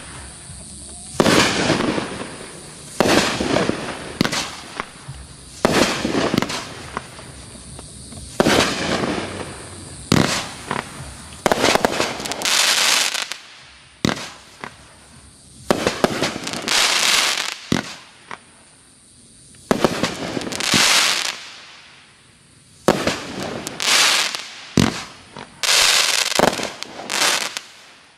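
Great Grizzly 'Double Down' 18-shot finale repeater cake firing: a string of sharp shots and bursts, one every second or two with a few short pauses, each trailed by about a second of noisy hiss.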